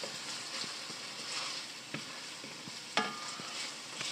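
Diced carrots, celery and shallots sizzling in hot oil in an enameled cast-iron skillet while a wooden spoon stirs them, scraping and knocking against the pan. The sharpest knock comes about three seconds in.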